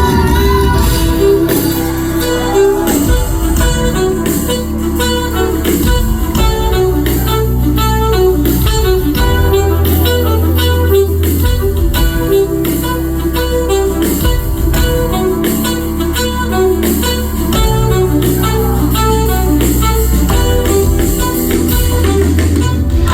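Live band music: an instrumental passage led by electric guitar over bass and a steady beat.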